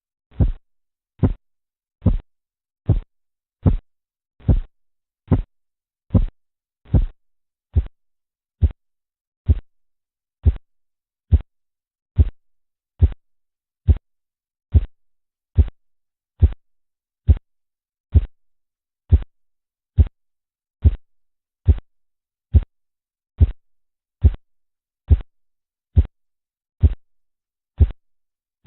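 Korotkoff sounds heard through a stethoscope over an artery below a deflating blood pressure cuff: short, regular taps with the pulse, about seventy a minute, evenly spaced and of fairly even strength.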